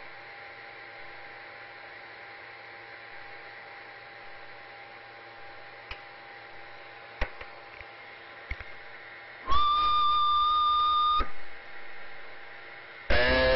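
CB radio receiver hissing with static, broken by a few sharp clicks, then a loud steady whistle-like tone for under two seconds. A second loud tone with many overtones comes in near the end.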